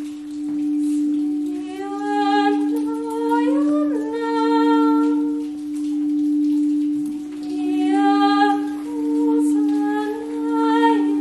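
Crystal singing bowls being played with a mallet, giving one steady low ringing tone that swells and fades about every two seconds. A voice sings two long notes over it that slide up in pitch, one near the start and one in the second half.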